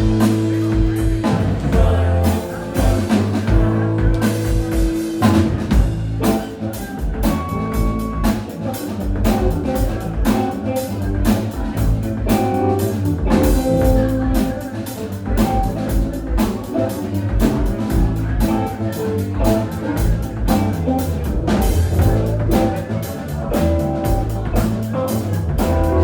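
A live band playing an instrumental passage on electric guitar, bass, drum kit and keyboards, with a steady drum beat.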